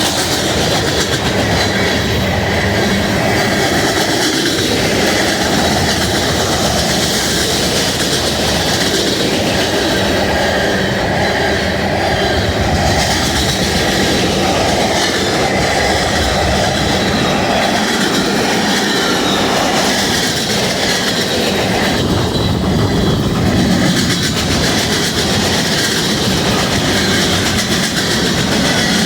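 BNSF freight train passing close by, its cars rolling steadily over the rails with a loud, continuous rumble and rattle of wheels and cars.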